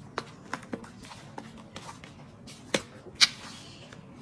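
Hands handling a stiff crocodile-embossed calfskin handbag as its flap is lifted and the bag opened: a string of light taps and clicks of leather and metal hardware, with two louder clicks about half a second apart in the second half.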